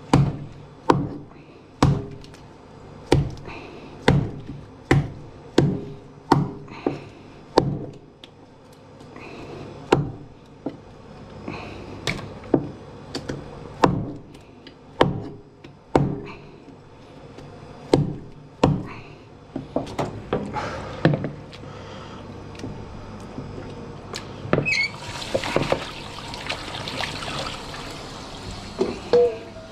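Kitchen knife chopping pieces of red sea bream on a cutting board: sharp knocks about every two-thirds of a second, thinning out after about eight seconds. About 25 seconds in, a tap starts running water steadily as the chopped fish is rinsed.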